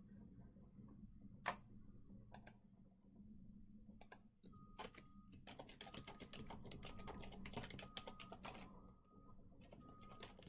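Faint typing on a computer keyboard: a few single clicks at first, then a quick run of keystrokes about halfway through, thinning to scattered clicks near the end.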